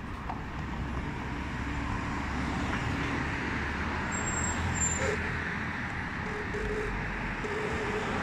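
City street traffic noise: a steady wash of passing vehicles on the road, with a low rumble.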